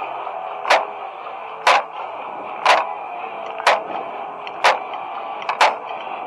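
Sharp drumstick clicks on a marching snare drum keeping a steady beat, about one a second, with a quick double click near the end.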